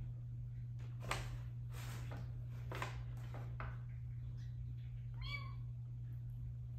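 A few short crinkling rustles of a brown paper bag, then a cat gives one short meow about five seconds in.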